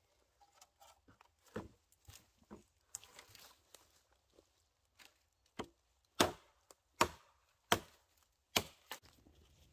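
Hultafors Hultan axe chopping into a dead branch: a series of sharp wooden strikes, a few softer ones at first, then loud blows in the second half, about one every three-quarters of a second.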